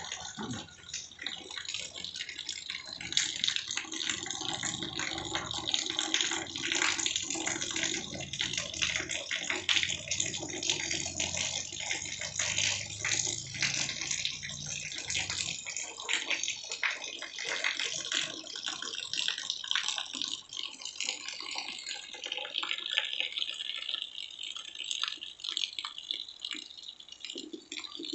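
Steady rain falling, dense with the ticks of close drops spattering, as water runs off the roof edge. A low rumble underneath stops about halfway through.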